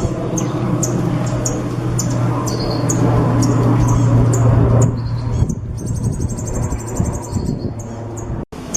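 Caged songbird singing: short high chirps repeated about twice a second, then a fast, very high trill a little past halfway. A steady low hum and background noise lie underneath.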